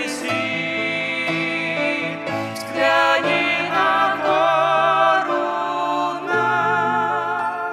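Slow hymn with accompaniment: a melody line with vibrato over long held bass notes.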